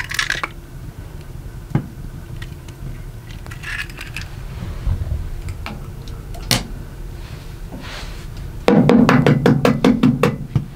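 Hard objects knocking: a few single knocks, then about two seconds of loud, rapid clattering near the end.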